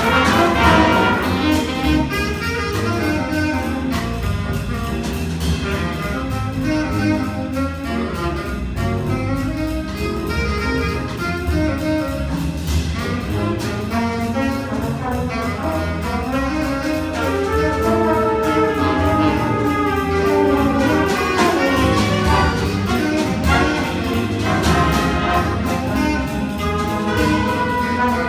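Student jazz big band playing a swing tune live: saxophones and trumpets over a rhythm section of drums, bass, guitar and piano, with a steady cymbal beat.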